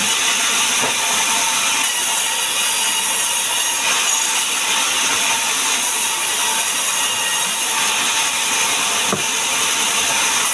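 Sawmill band saw cutting lengthwise through a hand-fed log: a steady, continuous hiss of the blade in the wood, with a few faint knocks from the log on the table.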